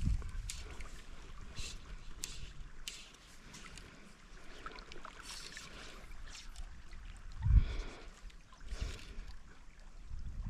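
River water running steadily, with a few short ticks in the first three seconds and one low buffet of wind on the microphone about seven and a half seconds in.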